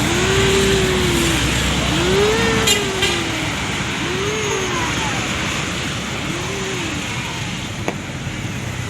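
A tour bus's musical 'telolet' horn sounding four smooth rising-and-falling tones a second or two apart, over the steady running noise of the bus convoy in traffic.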